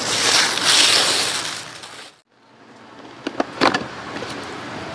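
Paper and plastic packaging rustling and crinkling as it is pulled off a boxed Prestigio gimbal. The rustling is loud for about two seconds, then cuts out. It comes back fainter, with a few sharp taps and crinkles as the box is handled.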